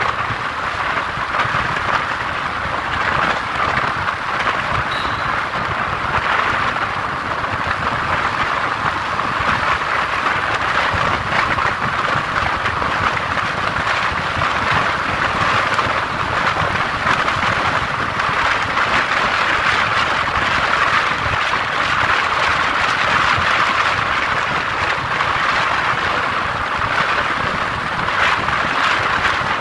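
Steady tyre and wind noise of a vehicle driving through a road tunnel, heard from inside the vehicle.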